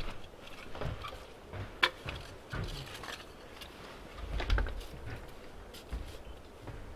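Handling noise of a tarp being pulled and adjusted over a smoker frame: scattered rustles, light knocks and clicks, the sharpest click about two seconds in.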